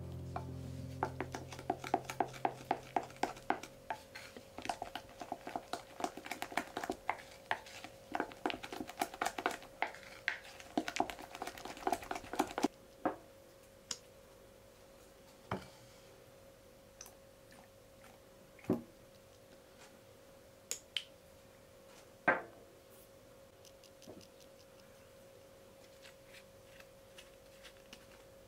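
Wooden spatula stirring thick almond-cream batter in a glass bowl as flour is worked in: rapid clicks and scrapes against the glass for about the first twelve seconds, then only occasional taps. A faint steady hum sits underneath.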